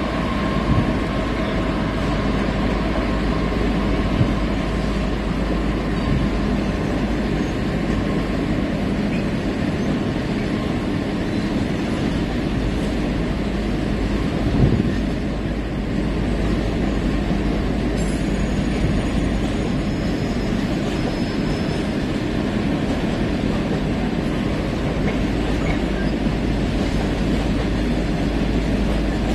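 Intermodal container freight train passing: a long, steady rumble and clatter of loaded container wagons rolling over the rails.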